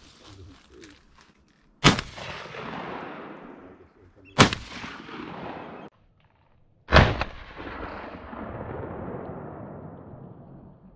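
Three 12-gauge semi-automatic shotgun shots about two and a half seconds apart, each a sharp crack followed by a long echo rolling away over the open marsh.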